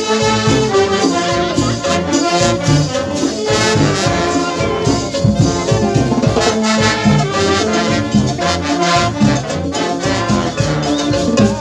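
Brass band playing an instrumental passage between sung verses: trumpets, slide trombones and sousaphones in full ensemble over a steady dance rhythm.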